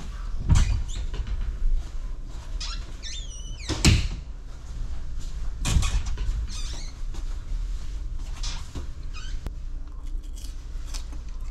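Booth door being opened and shut: several knocks, the loudest about four seconds in, with a squeak just before it.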